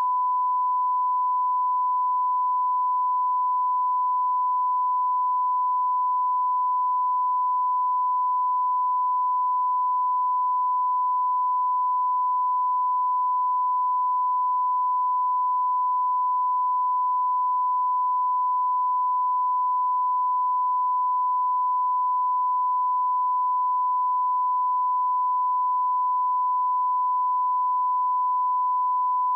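Steady 1 kHz sine-wave test tone, the line-up tone that runs with colour bars for setting audio levels, held unbroken at one pitch.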